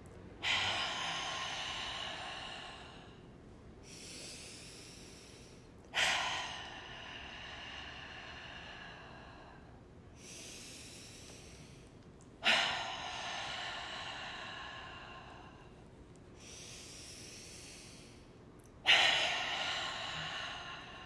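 A woman breathing in and then blowing out hard to empty her lungs almost completely, four times. Each exhale starts suddenly and tails off over a couple of seconds, with quieter in-breaths between them.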